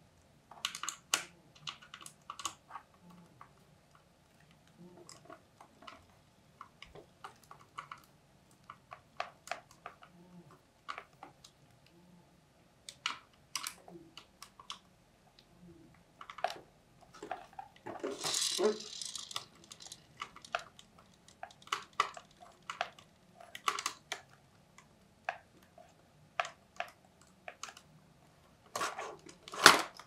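Scattered small clicks and taps of a precision screwdriver and fingers on an opened Asus Q405UA laptop's plastic case and internal parts. A brief scraping rustle comes a little past halfway, and a few louder clicks come near the end.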